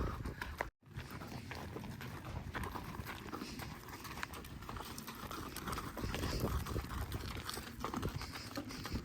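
Hooves of several ridden horses clip-clopping, a continuous jumble of hoofbeats. The sound cuts out completely for a split second just under a second in.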